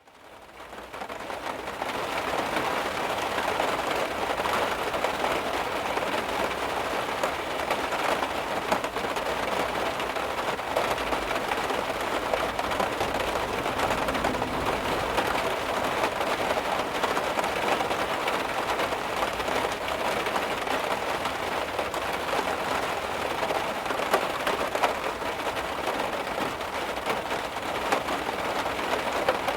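Heavy rain drumming steadily on a car, a dense even patter with occasional louder individual drops. It fades in over the first couple of seconds, then holds steady.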